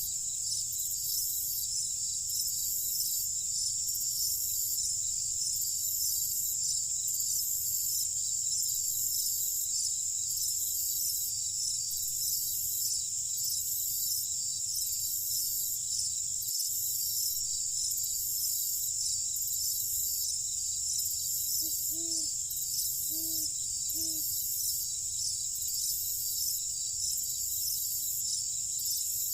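Night chorus of crickets: a steady high-pitched trill with a pulsing layer above it, over a low steady rumble. About two-thirds through, a few short low calls sound four times in quick succession.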